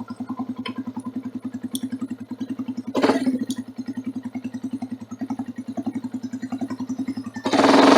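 Motorcycle engine idling with an even, pulsing beat, with a short louder swell about three seconds in. Near the end the throttle opens and the engine gets suddenly much louder as the bike pulls away.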